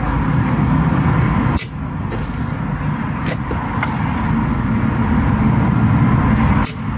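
An RCBO (residual-current breaker) tripping twice with sharp clicks, about a second and a half in and again near the end, each time the socket tester's RCD test button is pressed; the trips show that the RCD protection on the inverter's output works. A steady low rumble runs underneath throughout.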